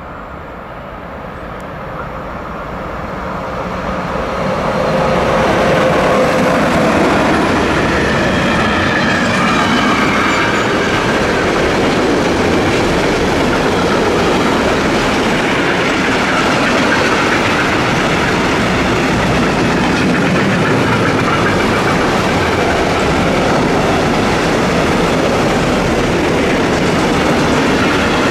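A long freight train of tank wagons and open wagons rolling past close by: a steady loud rush of steel wheels on the rails with clickety-clack over the rail joints. It builds up over the first five seconds as the train draws near, then holds level.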